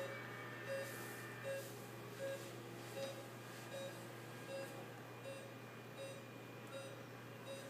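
Bedside patient monitor beeping: a short, fairly quiet electronic beep repeating evenly about every three-quarters of a second, the monitor's pulse tone, over a steady low hum.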